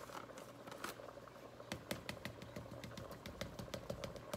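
Faint, irregular small clicks and taps as a plastic screw cap is twisted off a jar of powdered chicken bouillon and the jar is handled over the pot; the clicks come thicker in the second half.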